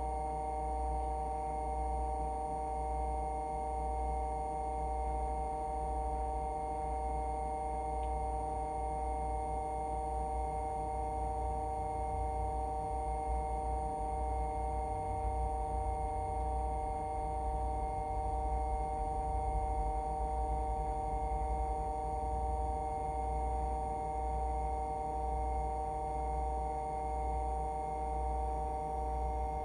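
Hydraulic pump of an AL-KO HY4 motorhome levelling-jack system running, a steady hum with a whine at several pitches, as the jacks extend down to ground contact before levelling starts.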